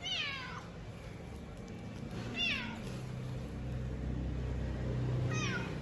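A cat meowing three times, each meow high and falling in pitch, about two and a half seconds apart: a hungry cat calling for food. A low rumble runs underneath and grows louder in the second half.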